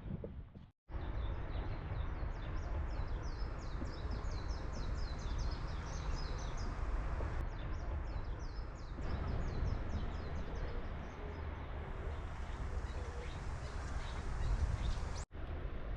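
Small birds chirping in quick repeated calls over a steady low rumble of wind on the microphone.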